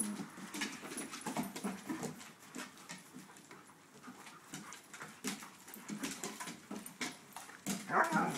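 Dogs wrestling in play, with low growling and whining and scattered short clicks and knocks. A louder, higher whine comes near the end.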